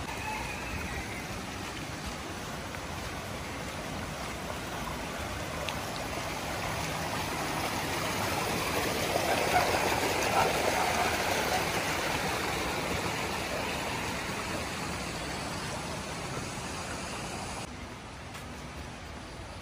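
Steady rushing noise that swells to its loudest about halfway through and then eases, dropping suddenly near the end.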